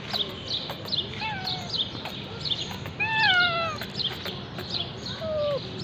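Kitten meowing three times in calls that fall in pitch. The middle call, about three seconds in, is the loudest and longest.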